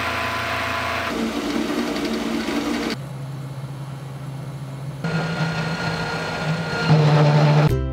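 Machine-shop sounds in quick succession, each cut off abruptly: a milling machine's end mill cutting steel, a steady welding arc, and a metal lathe running. Music begins near the end.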